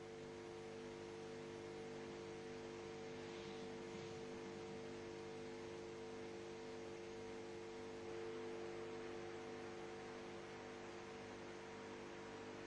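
Faint steady electrical hum with a few steady tones over a light hiss, and a softer tone pulsing about twice a second: the noise of an open audio feed.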